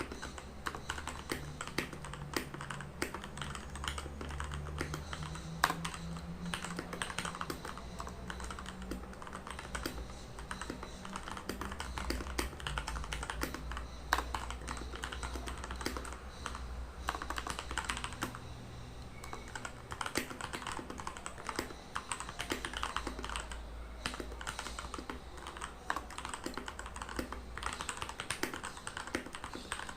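Redragon Kumara mechanical keyboard with lubed Outemu Red linear switches being typed on in a steady, continuous stream of keystrokes at a moderate typing-test pace, about 63 words a minute. A few strokes stand out louder than the rest.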